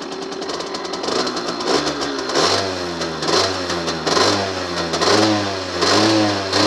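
Gilera SMT 50's 50cc two-stroke single-cylinder engine idling, then revved in about six quick throttle blips, each rising and falling in pitch, a little under a second apart.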